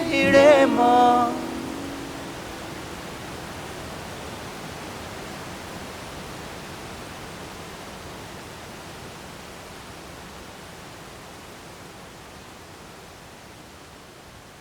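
A song with singing ends about a second in, leaving a steady, even rushing noise that slowly fades out.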